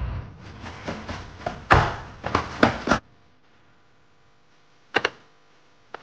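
Handling noises from a handheld garment steamer being filled. First comes a run of knocks and taps. Then it goes quiet, and a sharp double click about five seconds in comes as the plastic water-tank cap is pressed shut.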